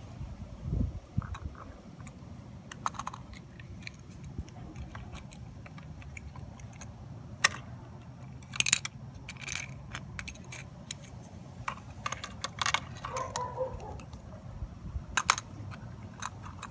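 Small plastic and diecast metal parts clicking and clattering as a toy trash cart is handled, latched onto a model garbage truck's rear tipper and tipped into the hopper. The clicks come in scattered clusters over a low steady rumble in the background.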